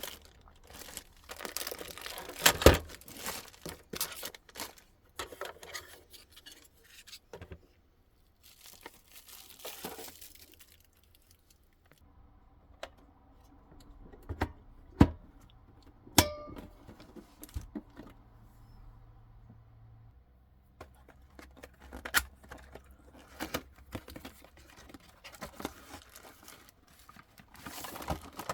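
Packaging being handled and torn open: irregular rustling and crinkling of paper, plastic and cardboard, with a few sharp knocks, the loudest near the start and about halfway through.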